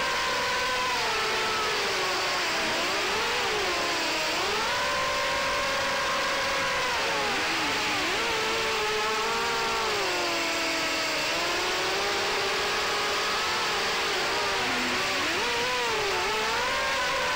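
FPV racing quadcopter's electric motors and propellers whining in flight, the pitch rising and falling again and again with the throttle.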